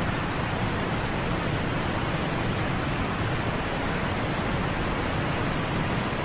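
Steady, even rushing noise with no tone, rhythm or separate strokes, heaviest in the low range.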